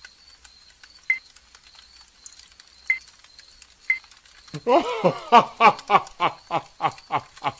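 Faint crackling and small pops of a campfire, then about four and a half seconds in a cartoon caveman's voice breaks into loud, rapid laughter, about four bursts a second.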